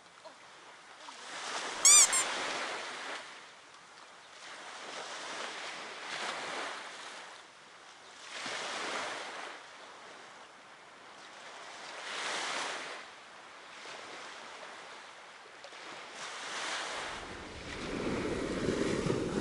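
Small waves breaking and washing up on a sandy beach, the surf swelling every three to four seconds. A short bright ringing tone sounds about two seconds in, and a low wind rumble on the microphone comes in near the end.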